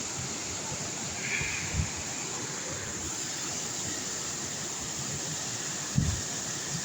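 Steady rush of falling water from a waterfall, with two short low thumps, one about two seconds in and a louder one near the end.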